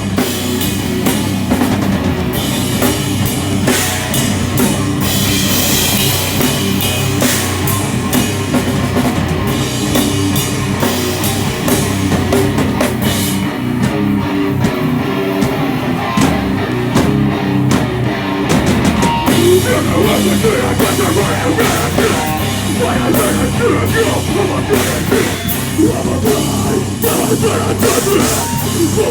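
Live heavy rock band playing loud, with a pounding drum kit and guitars.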